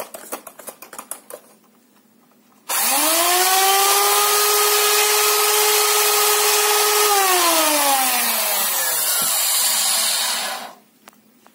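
Electric hand mixer whipping egg whites and powdered sugar into a glaze in a stainless steel pot. After a few light clicks, the motor comes on about two and a half seconds in and spins up to a steady whine. Its pitch slides down in the second half, and it cuts off shortly before the end.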